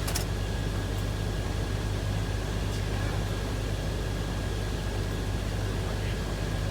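Steady low machine hum under an even hiss, with a thin steady whine above it; a single sharp click right at the start.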